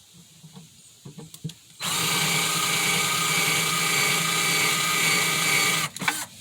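Power drill running steadily for about four seconds with a countersink bit, cutting a countersink for a screw in the plywood speaker baffle, then stopping abruptly; a few light clicks before it starts and after it stops.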